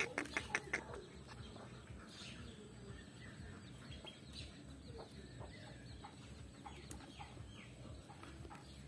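Common myna calling: a quick run of harsh repeated notes, about four a second, that stops about a second in, followed by faint scattered chirps.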